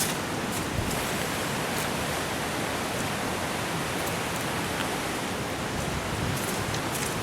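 Steady, even rushing noise outdoors, with a few faint ticks.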